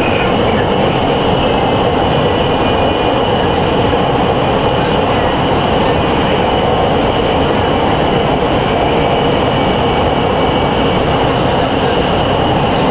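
Nanchang Metro Line 2 train running through a tunnel, heard from inside the passenger car: a steady, loud noise of wheels on rails, with a steady high-pitched whine over it.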